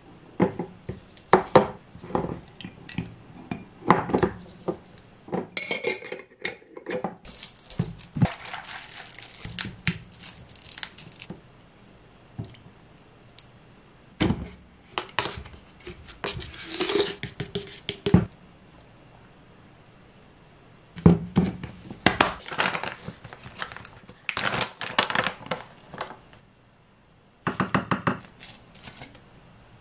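Kitchen prep sounds: a wooden spoon scooping thick Greek yogurt out of a glass jar, knocking against the glass and a wooden bowl. Between the knocks comes plastic bag rustling, and near the end a quick run of spoon clicks.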